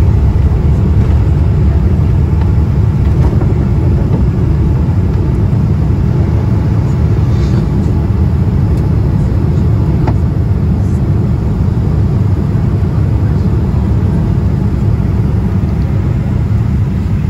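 Cabin noise of a Boeing 787-10 at takeoff: a loud, steady low rumble of engines and airflow that carries through liftoff into the initial climb.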